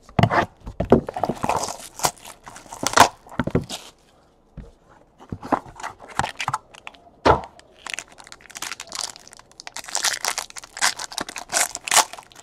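Hands opening a cardboard trading-card box and tearing open the foil pack inside: a run of short crinkles, rips and taps, with a pause about four seconds in.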